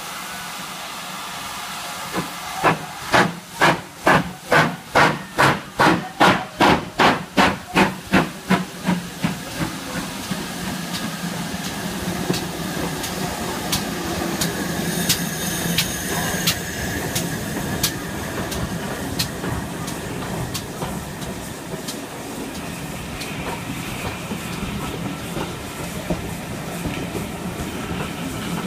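Ex-GWR 4-6-0 steam locomotive chuffing: a run of loud exhaust beats, about two or three a second, that fades after several seconds. Then a steady hiss of steam and the clicking of wheels over rail joints as the train runs past.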